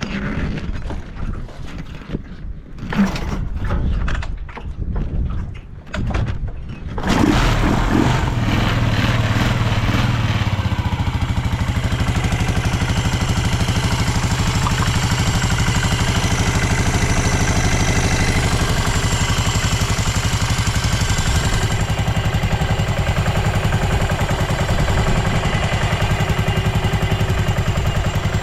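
Yamaha SR400's air-cooled single-cylinder four-stroke engine being kicked over in a few uneven strokes, catching about seven seconds in, then settling into a steady, even idle. It runs without any abnormal noise, quiet, with the healthy sound of a freshly restored engine on its start-up check.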